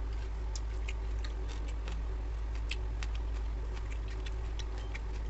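Fingers mixing rice on a stainless steel plate, giving irregular light ticks and clicks, two to four a second, over a steady low hum.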